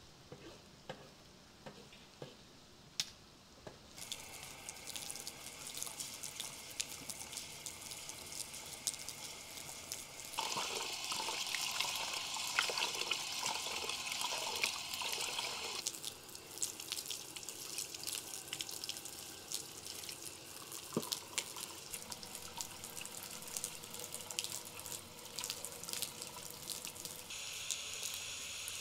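Water from a tap pouring into a metal pot while rice is rubbed and swished by hand in it. The water and swishing are loudest in the middle, with quieter running water before and after and only a few faint clicks at the start.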